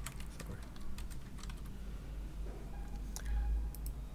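Computer keyboard typing: irregular key clicks with short gaps, over a low steady hum.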